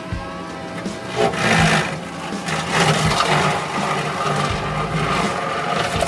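Kubota SVL65 compact track loader's diesel engine running under load while its brush cutter chews through brush, with irregular louder surges of cutting noise over a steady engine hum.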